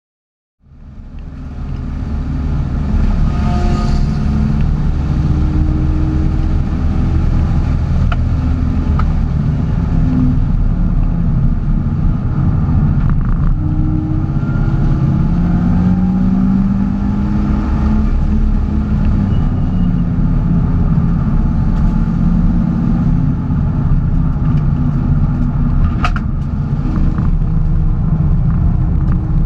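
Porsche driving: a steady low rumble of engine and road noise, with the engine's pitch drifting slowly up and down. There is a single sharp click near the end.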